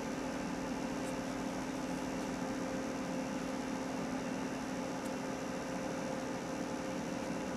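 Steady background hum with an even hiss, two constant low tones under it, and a couple of faint high ticks.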